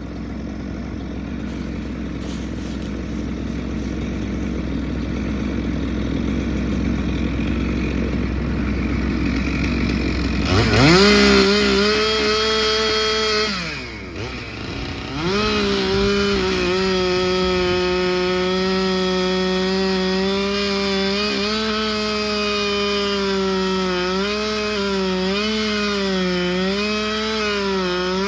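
Two-stroke chainsaw: after a low running rumble, it revs up to full throttle about ten seconds in and cuts. It eases off briefly, then runs high again, its pitch sagging and recovering as it bogs under load in the wood.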